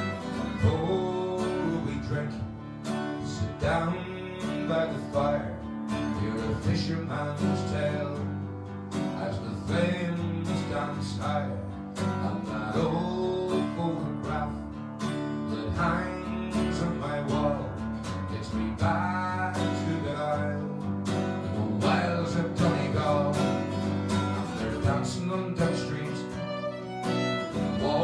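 Instrumental folk tune played on strummed acoustic guitar with a fiddle carrying the melody.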